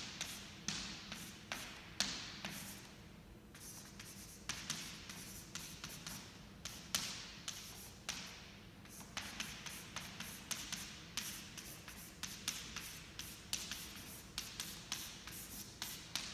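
Chalk writing on a chalkboard: an irregular run of short scratching strokes and taps as the chalk is pressed and dragged across the board, several a second.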